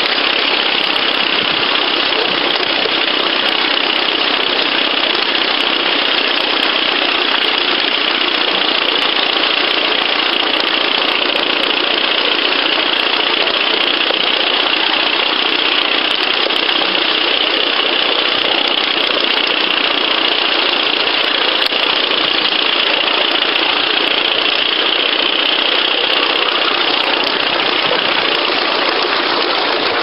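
Miniature live-steam locomotive running along the track: a loud, steady hissing rush of running noise with no separate beats and no change in pace.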